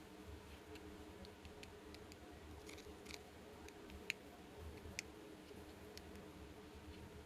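Light scattered clicks and taps of small plastic toy pieces being handled, with two sharper clicks about four and five seconds in, over a faint steady low hum.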